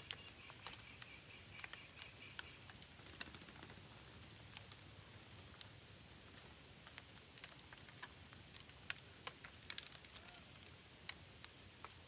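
Faint, irregular clicks and ticks from a flock of parakeets shuffling on a branch. A brief, faint chirping trill comes right at the start.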